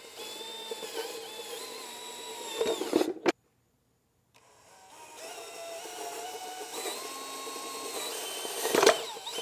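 Cordless drill boring holes into a plywood panel: two runs of a steady motor whine, each ending in a short louder burst, with about a second of silence between them.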